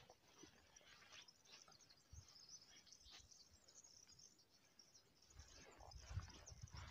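Near silence in a mountain pasture: faint, scattered high bird chirps, with a few soft low thumps near the end.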